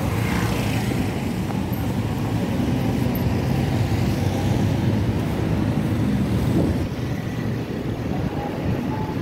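Street traffic: a steady low rumble of passing cars and motorbikes, with a motor scooter going by close at the start.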